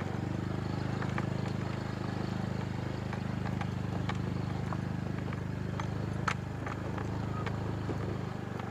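Motorcycle engine running steadily as the bike climbs a rough, stony dirt track, with scattered clicks and knocks from gravel and the rattling bike, one sharper knock about six seconds in.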